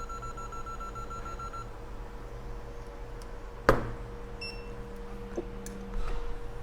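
A rapid series of short, high electronic beeps for about a second and a half, then a single sharp click a little past halfway, over a faint steady hum.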